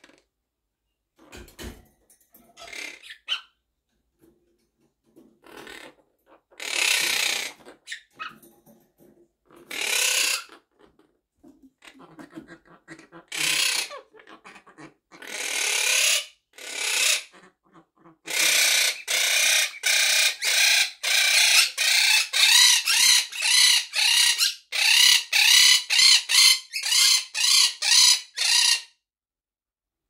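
Quaker parrot (monk parakeet) calling: a few scattered harsh squawks, then a long run of repeated shrill calls, about two a second, for around ten seconds.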